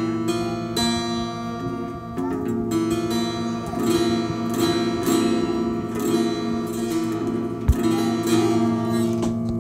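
Background music led by plucked, strummed acoustic guitar, with one low thump about three-quarters of the way through.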